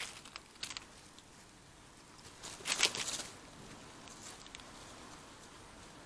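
Dry fallen leaves rustling and crackling as a hedgehog and badgers forage among them, in short scuffles with a longer, louder rustle about three seconds in.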